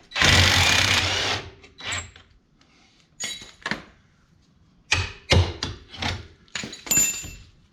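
Work on a bolt in a side-by-side's rear suspension: a loud burst about a second long right at the start as the bolt is worked, then a series of sharp metal clinks and knocks, some ringing briefly, from tools and parts against the suspension.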